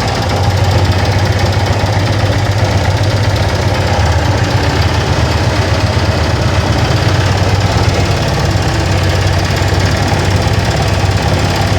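Yamaha FZ16 Fazer's single-cylinder engine idling steadily, carrying a fast rhythmic mechanical noise that the owner finds unusual and cannot identify.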